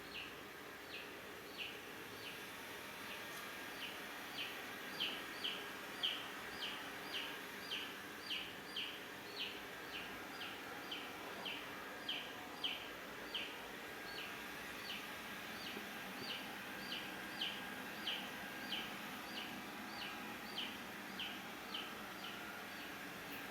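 A robot vacuum running with a steady hum, under a string of short, high chirps that fall in pitch, a little under two a second. The chirps are loudest in the middle of the stretch.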